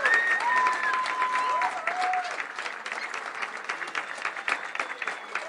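Crowd clapping and cheering, with a few long held whistles over the applause in the first two seconds; the applause gradually dies down.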